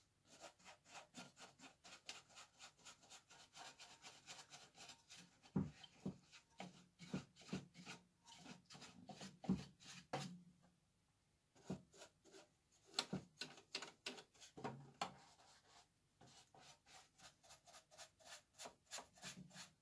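Paintbrush bristles scrubbing caked powder dust off the metal fan blades inside a coffee roaster. The strokes are quick, faint and repeated, about three or four a second, with a short pause a little past halfway.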